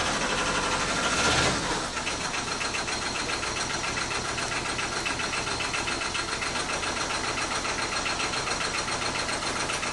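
Quad bike (ATV) engine idling with an even pulsing beat, briefly louder about a second in.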